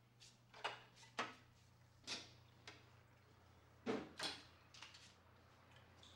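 A handful of faint, light knocks and clicks, spaced irregularly a half second to a second apart, over a low steady hum.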